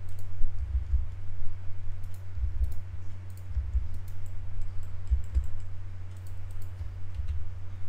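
Computer keyboard keys and mouse buttons being pressed: scattered, irregular clicks and dull taps over a steady low hum.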